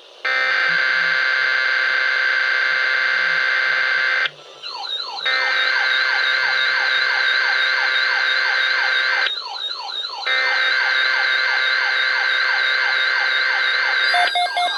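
Electronic emergency alert tones: a steady multi-tone note for about four seconds, then two stretches of a rapidly repeating falling warble, about two to three sweeps a second, separated by short breaks. Near the end a different beeping pattern begins.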